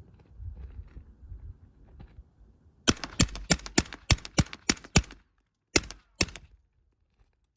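Rapid semi-automatic fire from a Honey Badger pistol in .300 Blackout: about nine quick shots in two seconds, a brief pause, then two more. A low rumble and faint clicks come before the first shot.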